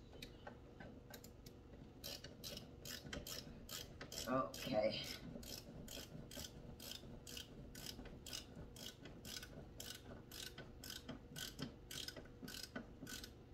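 Ratcheting screwdriver driving a screw by hand into an existing hole, its pawl clicking steadily about three times a second from about two seconds in.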